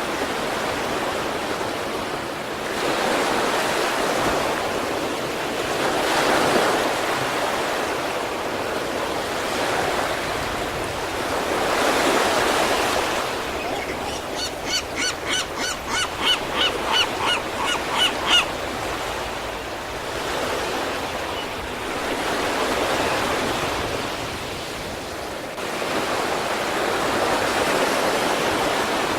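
Sea waves breaking and washing up the shore, swelling and easing every few seconds. Partway through, a bird calls about a dozen times in quick succession for some four seconds.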